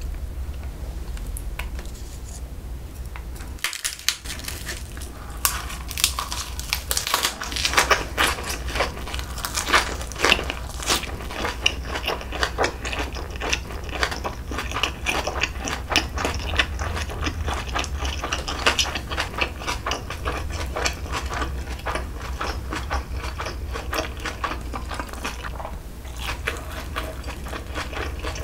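Close-miked chewing and wet mouth clicks of a person eating jokbal (braised pig's trotters). The sound is sparse at first and turns into a dense, quick run of clicks about four seconds in. A steady low hum lies underneath.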